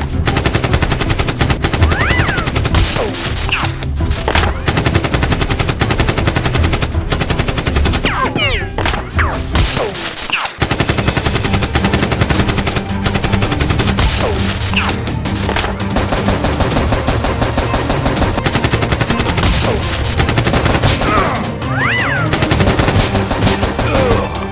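Rapid, nearly continuous automatic gunfire sound effects, mixed over a music bed, with a brief break about ten seconds in.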